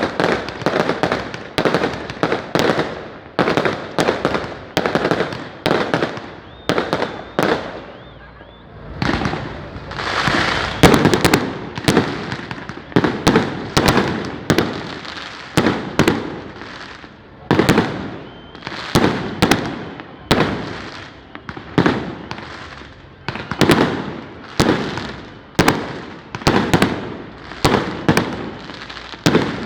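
Firecrackers going off in a long, rapid run, about two sharp bangs a second, each with a short ringing tail, with a brief lull about eight seconds in.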